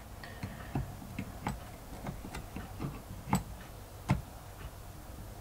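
Light, irregular clicks and taps of small metal engine parts and tools being handled while a dropped pin is worked out of a nitro RC engine, about two or three a second, with two sharper clicks near the middle.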